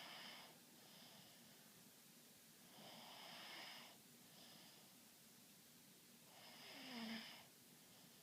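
A person snoring faintly, in slow rhythmic breaths about every three seconds: three snores, each lasting about a second, the loudest near the end.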